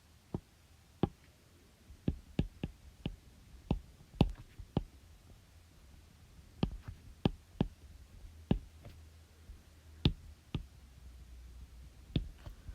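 Irregular sharp clicks and taps, about twenty of them at uneven intervals, over a faint steady low hum.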